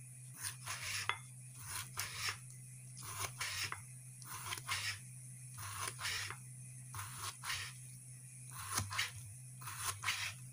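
Kitchen knife slicing raw chicken breast on a wooden cutting board: a short scraping cut with a tap of the blade on the board, repeated about twice a second.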